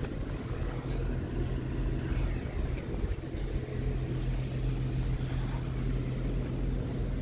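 Steady low hum with wind rumbling on the microphone; the hum begins about half a second in and holds level.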